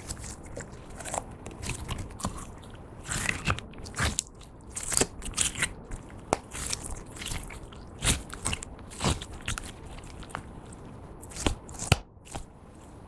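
Hands kneading and pressing clear slime mixed with glitter lipstick and lip gloss, giving irregular sticky clicks, pops and crackles, with a louder sharp pop about twelve seconds in.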